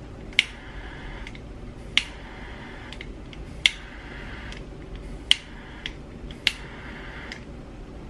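Handheld gas torch clicked on five times, each click followed by about a second of flame hiss, in short bursts to shrink the heat-shrink butt connectors sealing the spliced wires.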